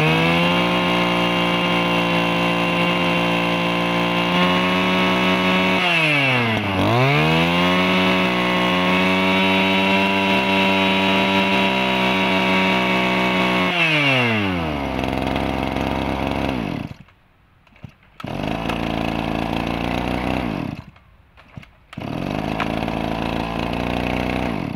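Komatsu G2KC 23cc two-stroke brush cutter engine revving at a steady high speed, throttled back and revved up again about six seconds in, then dropping to idle; later the sound cuts out briefly twice.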